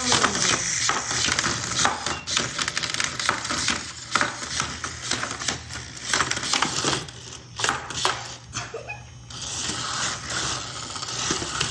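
Small toy battle robots clattering against each other and the arena: a rapid, irregular jumble of light plastic clicks and knocks over a steady low hum.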